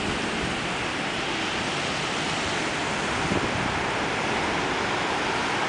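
Strong thunderstorm wind rushing steadily through trees, an even hiss with no break.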